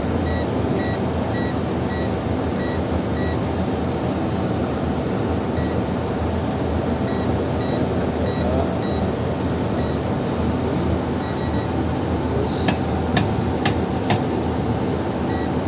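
Electronic safe's keypad beeping as its buttons are pressed: short high beeps about two a second, then more scattered beeps and a quick run of three, with a few sharp clicks near the end, over a steady background hum.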